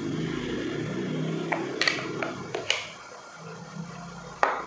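Small clicks and taps from a plastic serum bottle being handled and opened, the loudest one near the end. Under them is a steady low background rumble that drops away about three seconds in.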